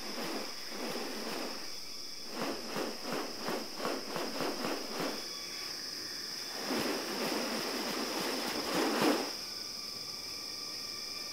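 Rainforest insects droning on one steady high pitch. Over it come about ten short noisy pulses, roughly three a second, then a longer noisy rush a few seconds later, from an unidentified source.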